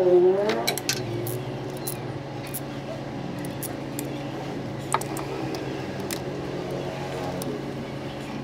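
Scattered metallic clicks and clinks of hand tools on the starter motor's bolts and cable, with one sharp clink about five seconds in, over a steady low hum. A wavering pitched sound fades out in the first second.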